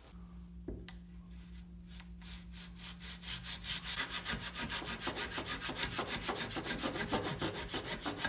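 Coping saw cutting through the ends of small wooden dowel pipes in quick, even back-and-forth strokes, which get faster and louder about four seconds in.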